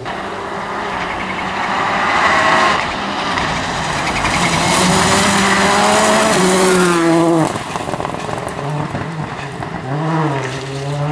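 Rally car passing at speed, its engine at high revs climbing in pitch through the gears, loudest through the middle, then dropping sharply about seven and a half seconds in. A further short burst of revving near the end.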